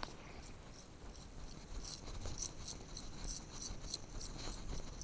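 Faint footsteps of sneakers on wet pavement, with a run of light wet clicks from about two seconds in.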